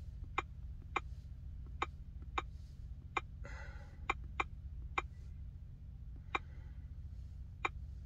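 Keyboard click sounds from the XTool D8 Android scan tablet's on-screen keypad as an email address is typed: about a dozen short, sharp clicks at an uneven typing pace. A steady low hum runs underneath.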